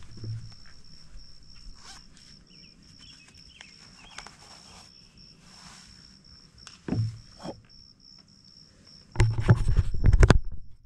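Insects trilling steadily on one high pitch, with a few faint chirps. Two thuds about seven seconds in, which may be footsteps on wooden dock planks, then loud rustling and knocking right at the microphone for the last second and a half.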